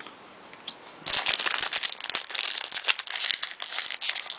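Foil wrapper of a baseball card pack crinkling and crackling as it is handled and opened, starting about a second in and going on steadily.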